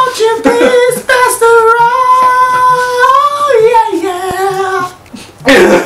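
A man singing a long high note in falsetto, held steady for about two seconds and then dropping in pitch, with a short breathy burst near the end.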